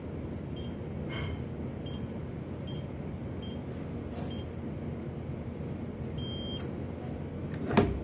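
Keypad of a Zymak ML350F digital safe beeping as a code is entered: six short beeps, about one every 0.8 seconds. A longer beep about six seconds in marks the code being accepted, and a sharp clack near the end comes as the knob is turned to release the bolt.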